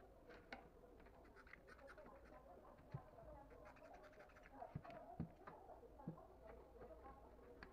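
Near silence broken by a few faint, scattered knocks and clicks of small wooden slats being handled and pressed together.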